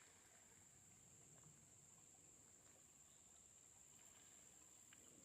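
Near silence: faint outdoor background with a steady high-pitched drone.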